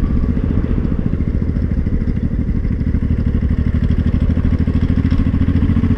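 Honda Shadow VT500C's V-twin engine running with a steady, fast clattering rattle under throttle. It is a new, worsening rattle that the rider first takes for a gearbox problem, and that the owner traces to broken and loose bolts.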